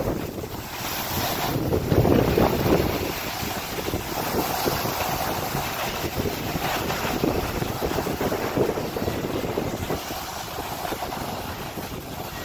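Wind buffeting the microphone during a slow downhill ski run, with the hiss and scrape of skis sliding over packed, chopped-up snow. It is loudest a couple of seconds in and eases off near the end.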